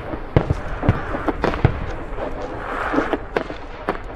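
Aerial firework shells bursting in quick succession: a rapid, irregular series of booms and sharp reports, several a second, over a steady hiss.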